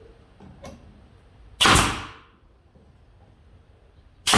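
Pneumatic nail gun firing twice, about two and a half seconds apart, each shot a sharp bang with a short hiss of air, driving nails into cedar boards.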